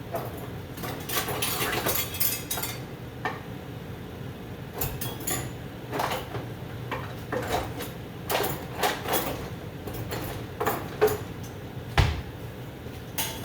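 Pots, dishes and utensils clattering in a string of clinks and knocks, with the loudest knock near the end.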